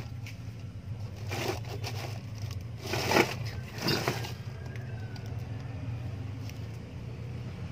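Upturned plastic basin scraping over concrete and crunching dry leaves in three short bursts in the first half, the middle one loudest, as the kitten trapped under it pushes it aside. A steady low hum runs underneath.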